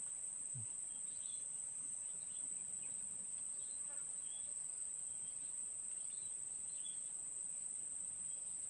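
Insects buzzing in one steady, high-pitched, unbroken drone, with a few faint short chirps over it.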